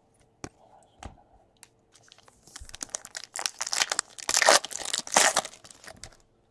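Foil wrapper of a Bowman Chrome baseball card pack being torn open and crinkled: a dense crackling that starts about two seconds in, is loudest near the end and then stops. A few light clicks of cards being handled come before it.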